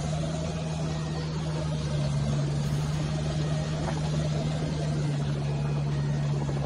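An off-road 4x4's engine stepping up to raised revs at the start and held there in one steady, even drone, working against a winch line in deep mud.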